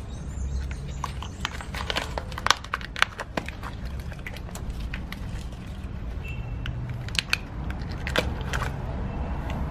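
Handling noise from a leather-gloved hand gripping and shifting a spiny cactus pad on a stone tile floor: scattered clicks, crackles and scrapes, sharpest about two and a half and three seconds in and again near the end, over a steady low background rumble.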